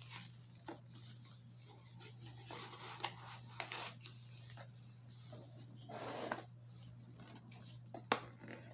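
Hands handling objects at a table: faint rustling and light taps, with a sharper click about eight seconds in, over a steady low hum.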